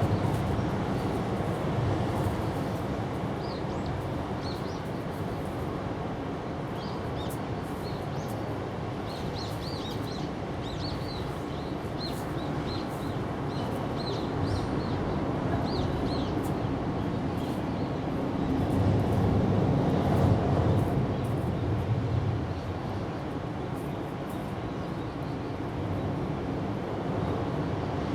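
Outdoor ambience: a steady low rumble with a bird chirping in short repeated notes through the first half, and the rumble swelling louder for a few seconds about two-thirds of the way through.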